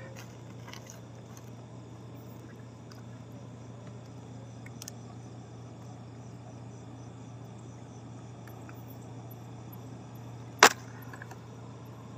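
Nylon gill net being handled while a fish is picked out of it in a wooden boat, with faint scattered rustles and ticks over a steady low hum and the chirring of night insects. About ten and a half seconds in comes one sharp, loud knock.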